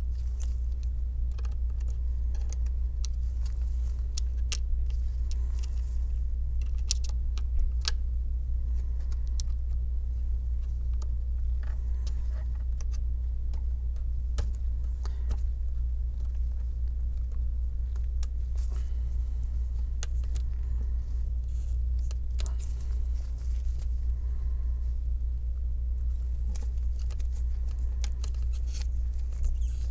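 A steady low hum with scattered small clicks and scratches from metal tweezers working at an iPhone 7's battery adhesive tape and frame.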